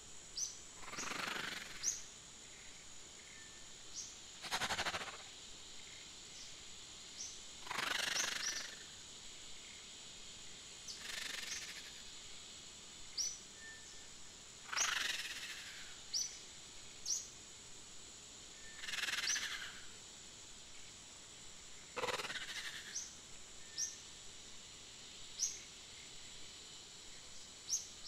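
Nature-sound ambience: short, high bird chirps about once a second over a steady high-pitched tone. A soft swishing rustle comes every three to four seconds.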